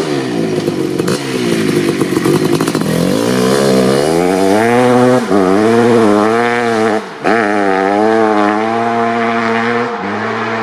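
1988 Kawasaki KX500's 500 cc single-cylinder two-stroke engine revved hard again and again, its pitch climbing and falling with the throttle. The note drops out briefly about seven seconds in and picks straight back up.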